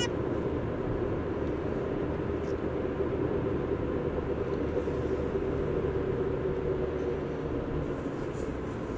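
Steady rumble of a moving vehicle, mostly low in pitch, with a faint even hum running through it.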